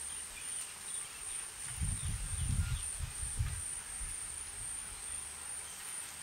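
Background ambience with a steady, high-pitched insect-like whine, and a few low rumbling bumps about two to three and a half seconds in.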